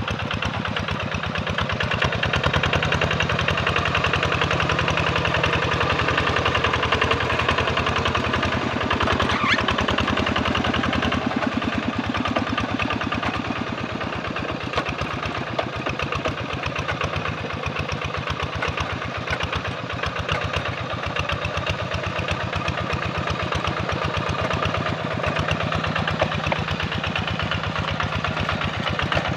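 Hand tractor's Kubota RD85 single-cylinder diesel engine running steadily with a fast, even chugging, working under load in a wet rice paddy.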